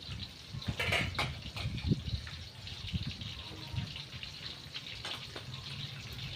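Water running and splashing, with scattered soft knocks.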